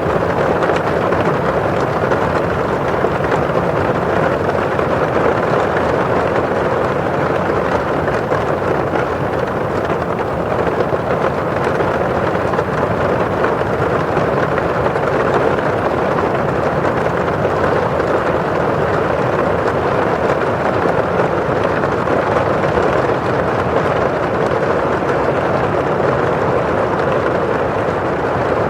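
Steady rain on a windowpane, with rain falling outside: an even, unbroken hiss that does not let up.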